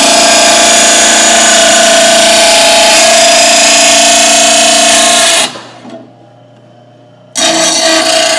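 Oregon bench grinder grinding the edge of a steel lawn mower blade to take out nicks: a loud, steady grinding whine with a constant tone. The sound drops away suddenly for about two seconds a little past halfway, then comes back at full level.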